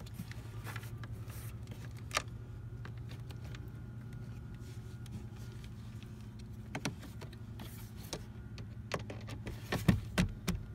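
Low steady hum under scattered light clicks and knocks as plastic dashboard trim and its screws are fitted by hand. Near the end comes a cluster of sharper clicks as a power drill starts driving a Torx screw into the glove-box frame.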